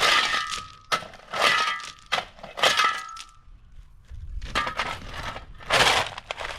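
Stones being struck and broken by hand: a series of sharp cracking blows, one about every second and a half, several with a short ringing tone.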